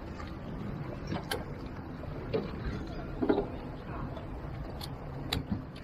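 Steady low rumble of wind and water around a small aluminum boat, with faint voices in the middle and a few sharp clicks, one near the start and two near the end.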